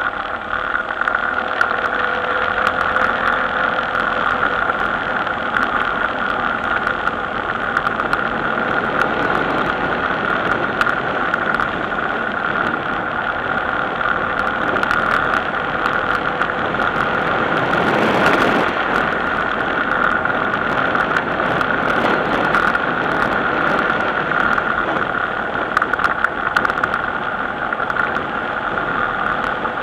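Steady running noise of a road vehicle on the move, picked up by a camera mounted on it, with frequent small clicks and rattles and a brief louder swell about two-thirds of the way through.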